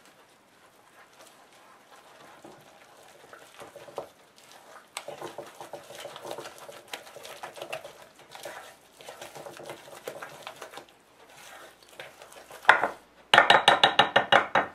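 A spoon stirring thick cornmeal batter in a ceramic mixing bowl, with repeated scraping strokes against the bowl. Near the end comes a louder, rapid clatter of the spoon against the bowl, about ten strokes a second.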